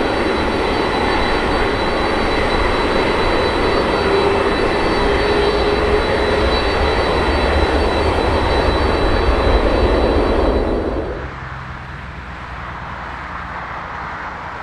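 Jet airliner's engines running loud, a dense roar with steady high whining tones. About eleven seconds in, the jet noise cuts off abruptly, leaving a much quieter low rumble.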